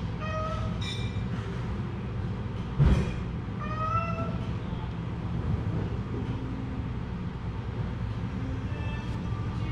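Domestic cats meowing: several short calls near the start, around four seconds in and near the end, over a steady low hum. A single loud thump about three seconds in.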